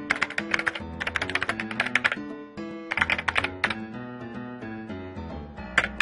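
Runs of rapid computer-keyboard typing clicks, in three or four bursts with pauses between them, over light background music whose notes step up and down.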